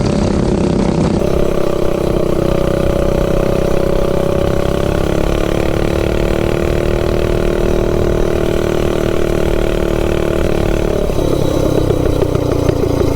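Single-cylinder stage 3 clone minibike engine running hard at steady high revs, its exhaust note damped by a baffle cap on the header pipe. Revs climb slightly, hold, then drop off near the end as the throttle is let off.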